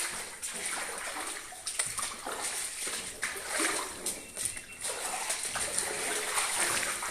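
Footsteps splashing through shallow puddles of water, a run of uneven splashes about one or two a second.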